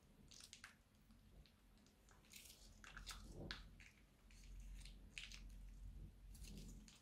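Slime being squeezed out of a plastic piping bag onto other slime: faint, scattered squishy crackles and pops that come in several short clusters.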